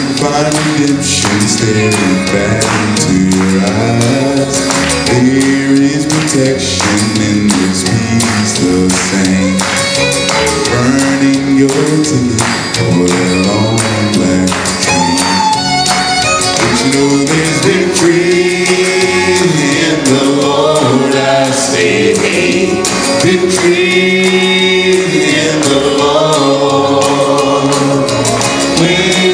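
Gospel song sung by a male vocal group into microphones over a backing track with a steady beat: one lead voice, with the group's other voices singing along by the end.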